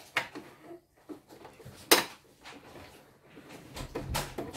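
Sharp clicks and light clatter of a screwdriver and small parts against the embroidery machine's housing during disassembly, a few separate knocks with the loudest about two seconds in.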